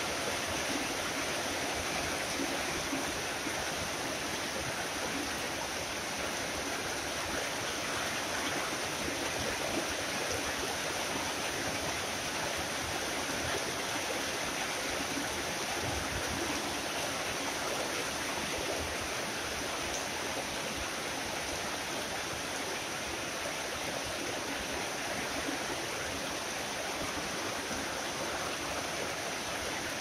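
Heavy tropical rain falling steadily: an even, unbroken hiss of water.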